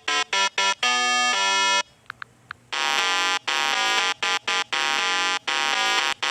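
Background music: a buzzy electronic melody of short, clipped notes, with a pause of about a second in the middle.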